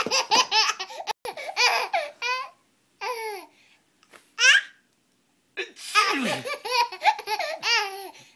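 Baby laughing hard in two long bouts of rapid, high-pitched pulses, with a short lull and a brief rising squeal in between.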